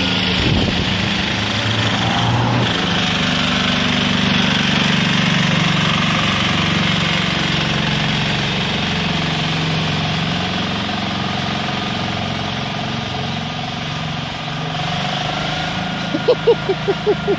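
John Deere 300 garden tractor fitted with a 10 hp diesel engine, running steadily as it drives along, getting a little fainter as it pulls away. Near the end, a quick run of about seven loud pulses cuts in over it.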